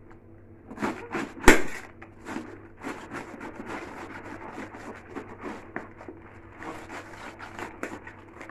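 Knife cutting through a raw white cabbage head on an enamel tray: continual crisp crunching and crackling of the dense leaves, with one sharp knock about a second and a half in.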